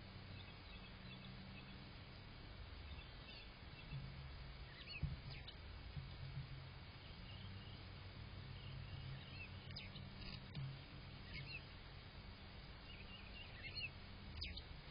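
Faint outdoor ambience: scattered short bird chirps over a low, steady background rumble.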